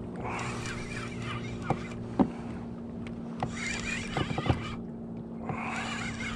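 Fishing reel being cranked to bring in a hooked fish, giving a squeaky, wavering whine in three spells of a second or so, with a few sharp knocks of gear between them. A steady low hum runs underneath.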